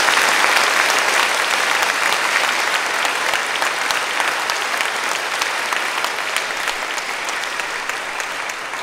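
Audience applauding: dense clapping that slowly dies down toward the end.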